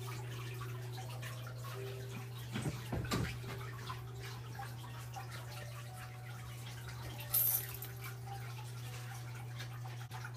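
Quiet room ambience: a steady low hum with faint soft sustained tones, a brief sound around three seconds in and a short hiss about seven seconds in.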